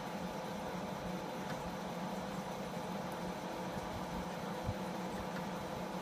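Texas Instruments Portable Professional Computer running: a steady fan and electrical hum with a few steady tones, and a faint click and a low knock partway through.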